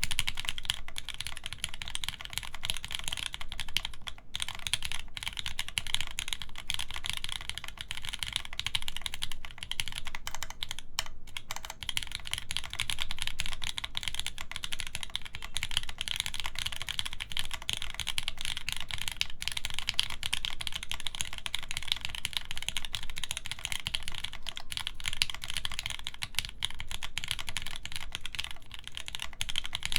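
Steady, fast typing on a custom 60% mechanical keyboard with lubed Gateron Yellow linear switches, an FR4 plate and GMK doubleshot ABS keycaps, giving a dense run of soft key clacks. The typing breaks off briefly about four seconds in and again around eleven seconds in.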